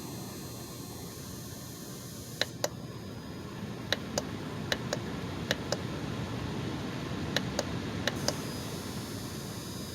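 Sunbeam SFH 442 fan-forced space heater running with a steady fan noise. Over the middle of the stretch it gives a series of sharp clicks, mostly in pairs about a quarter second apart.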